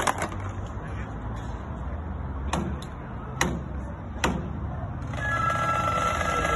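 Marching flute band starting a tune: a few sharp drum strikes, the last three evenly spaced under a second apart, then the flutes come in playing a melody about five seconds in.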